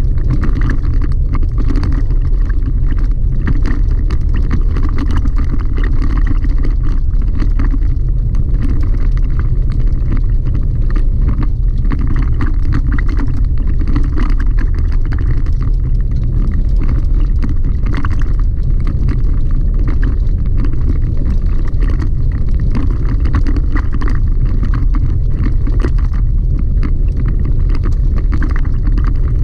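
Cabin noise of a Chevrolet Colorado ZR2 pickup driving on a gravel dirt road: a steady, loud low rumble of tyres and engine, with frequent small clicks from the gravel under the tyres.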